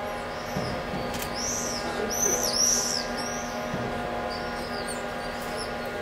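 Mobile crane's engine running steadily, with a series of high arched bird chirps over it, loudest between about one and three seconds in and again briefly about five seconds in.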